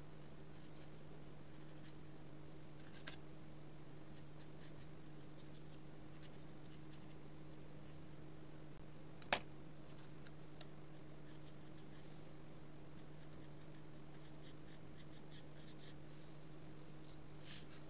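Paintbrush laying gouache onto paper: many faint short scratchy brush strokes over a steady low hum, with one sharp click about nine seconds in.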